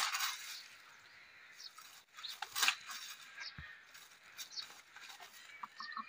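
Chickens scratching and pecking in dry straw and twigs: rustling and crackling, loudest at the start and again about two and a half seconds in, with a few faint short chirps.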